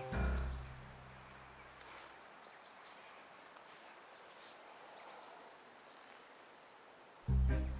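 A music note dies away at the start. After that there is faint outdoor ambience with a few short, high bird chirps. Music starts again near the end.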